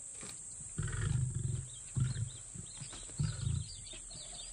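Lion giving three deep grunting roars about a second apart, the first the longest, with birds chirping faintly behind.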